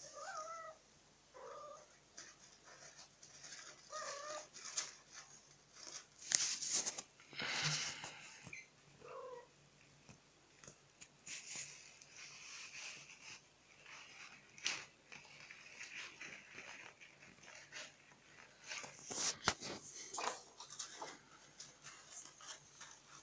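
Kittens mewing: short, thin cries, about four of them in the first ten seconds. Scattered scratching and rustling run among the cries.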